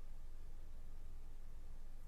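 Steady low background hum and hiss of a quiet room, with no distinct click or knock.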